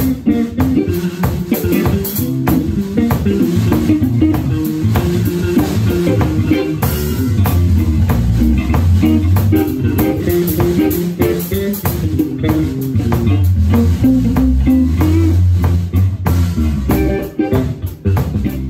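A blues-rock band playing an instrumental passage live, with electric guitar, electric bass and drums. The bass line grows heavier about halfway through.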